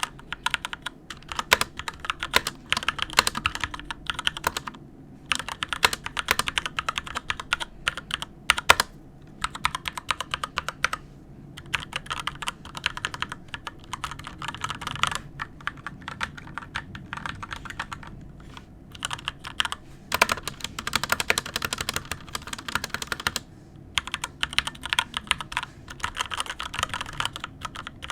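SteelSeries Apex 7 TKL mechanical keyboard with red linear switches being typed on in fast runs of clicking keystrokes. There are brief pauses about five, eleven and twenty-four seconds in.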